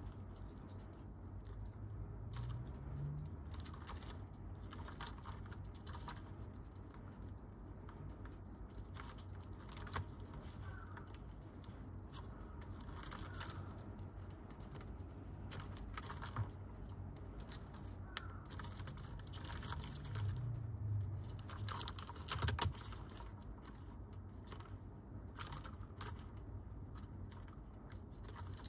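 Irregular scratching and clicking as a Japanese rhinoceros beetle and a Forster's stag beetle grapple, their legs, horn and mandibles scraping on cork bark and a plastic jelly cup, with a few sharper knocks. A low steady hum runs underneath.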